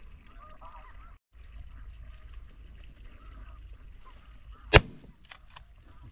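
Snow geese calling faintly early on, then a single loud shotgun blast about four and a half seconds in, followed quickly by two fainter, sharp cracks.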